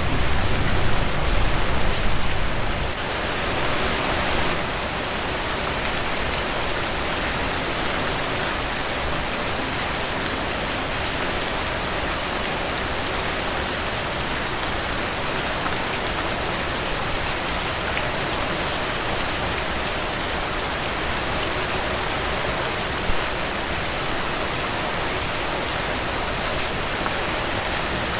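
Steady rain falling on the broad, glossy leaves of a frangipani tree, an even hiss of many drops. A slightly deeper rumble under it eases off about three seconds in.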